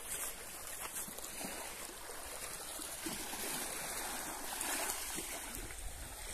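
Small waves of Issyk-Kul lapping over the rocks and pebbles of a stony shore: a steady wash of water with little irregular splashes, and a low rumble near the end.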